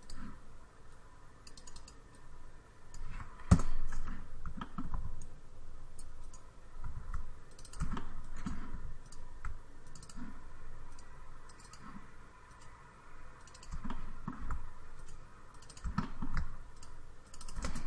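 Computer mouse clicks and keyboard keystrokes, irregular and scattered, with one louder click about three and a half seconds in.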